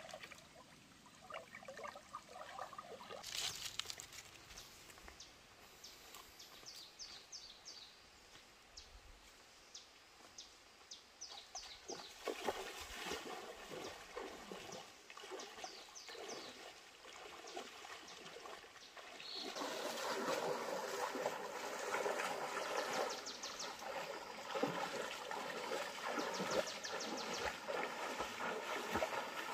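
Water sloshing and splashing as a person wades through a shallow stream, stride after stride. The splashing grows louder and denser about two-thirds of the way in.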